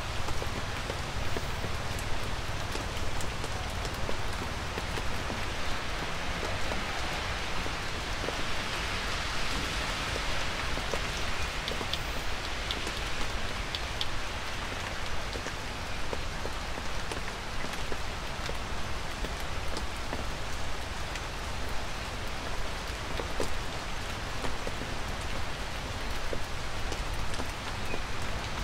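Light rain falling steadily, with scattered single drops ticking through the even hiss.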